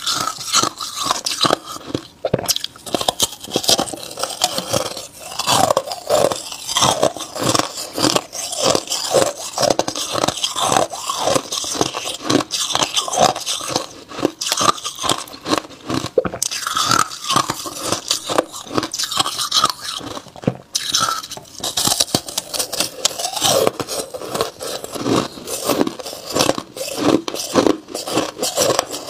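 Ice being bitten and chewed: a block of opaque white ice crunching in the mouth, many quick crunches one after another.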